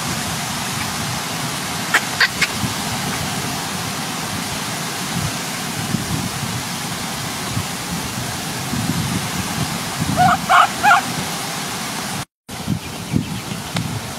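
Steady background hiss with a few short, high squeaks from a baby monkey, a couple of seconds in and again as a quick cluster near the end.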